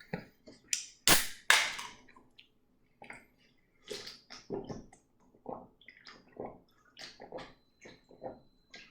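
Two sharp cracks about a second in as a bottle of Arizona iced tea is opened, then soft, irregular gulps and sloshes of drinking from it.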